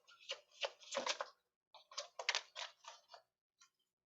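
A deck of tarot cards being shuffled by hand: a run of quick papery clicks and slaps that stops about three seconds in.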